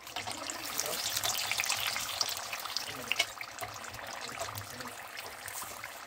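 Spring rolls deep-frying in hot oil: a steady sizzle full of fine crackles, easing slightly after about three seconds.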